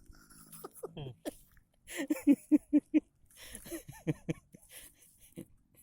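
A man's voice murmuring quietly in short, quick syllables, a chanted mantra that is said to be required for the bird trapping to work.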